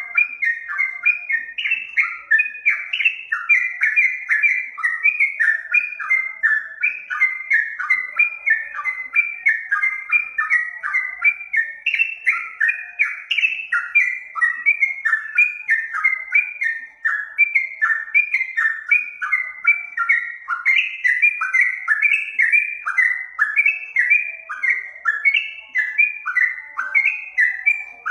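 Recorded song of a yellow-vented bulbul (trucukan), played as a lure: a continuous run of short, bubbling whistled phrases, about two to three notes a second, each sliding downward.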